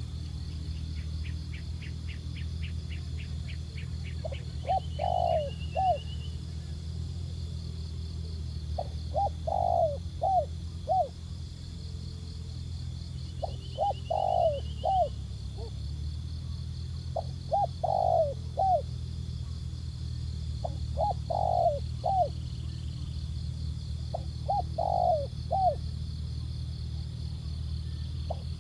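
Spotted doves cooing: six repeated phrases a few seconds apart, each a couple of short coos followed by a longer rolling coo and a short trailing note.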